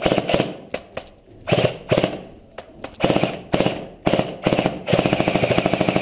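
Electric airsoft rifle firing in a series of short bursts, each a fast mechanical rattle of shots, with a longer unbroken burst of about a second near the end.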